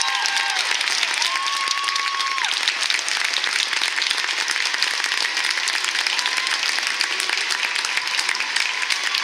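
Large crowd applauding steadily in an arena, a dense patter of clapping. A single held cheer rises above it about a second in.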